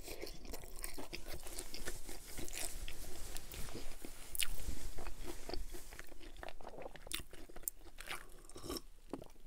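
Close-miked chewing of a mouthful of cauliflower-crust pizza: a steady run of many small, crisp crunches.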